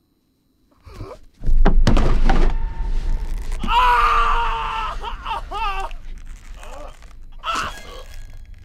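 A heavy thud about a second and a half in as a body hits wooden attic floorboards, with a low rumble that lingers under the rest. Then a person's long, wavering cry of pain and a few weaker groans.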